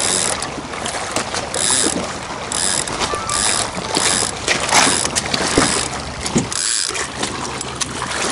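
Baitcasting reel's clicker ratcheting in a quick run of short bursts, less than a second apart, as line is pulled off the spool: a catfish taking the bait.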